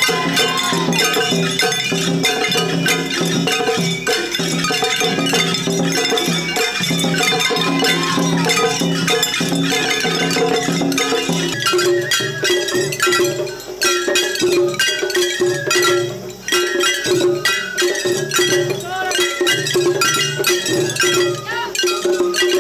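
Shagiri festival music played by children: shrill bamboo flutes (shinobue) carrying the melody over taiko drums and the fast, steady clanging of small hand gongs (kane). About halfway through the playing changes abruptly as another group's performance takes over.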